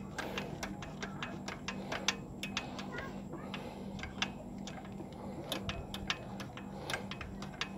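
Ratchet wrench clicking in irregular single clicks while the alternator's mounting bolt is being loosened, over a faint steady low hum.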